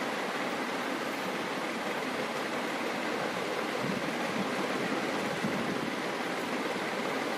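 A steady, even hiss of background noise with no distinct events.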